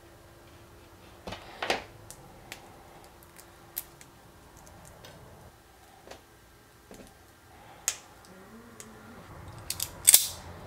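Snips and clicks of small hand tools, red-handled wire cutters among them, working thin wire and tiny connector pins, with a louder sharp click near the end.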